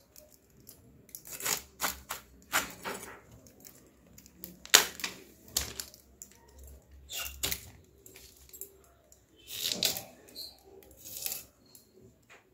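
Cauliflower being cut into small florets: irregular crisp cutting and tapping sounds, about a dozen, the loudest about five seconds in.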